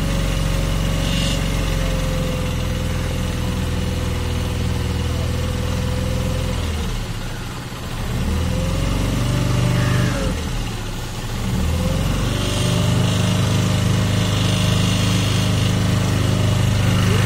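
Small motorboat engine running steadily while under way on the water, easing off about seven seconds in, picking up again, then easing off once more around ten seconds in before returning to a steady run.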